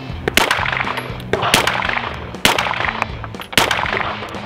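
Four single shots from a Glock pistol fitted in a CAA Micro Conversion Kit chassis, fired at a steady pace about a second apart, with background music under them.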